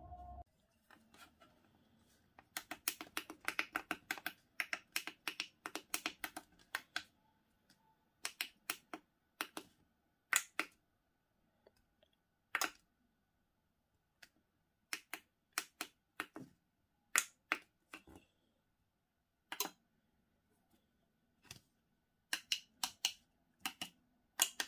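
Sharp clicks from a push-button combination lock circuit board as its buttons are pressed, in a fast run of several clicks a second early on, then in single clicks and pairs spaced a second or more apart.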